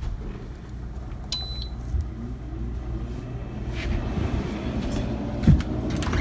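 Frigidaire 8,000 BTU through-the-wall air conditioner running with a steady low hum of compressor and fan. A short high beep sounds about a second in, and a thump near the end.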